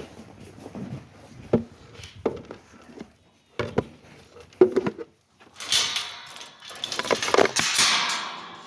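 Feeding sheep: a few scattered knocks and clatters, then, about halfway in, around three seconds of loud, steady rattling and rustling as the feed is handled.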